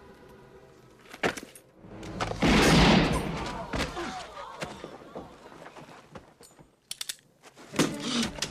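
A loud revolver gunshot with a short ringing tail about two and a half seconds in, after a sharp crack a second earlier. It is followed by scattered sharp clicks and a louder sound near the end.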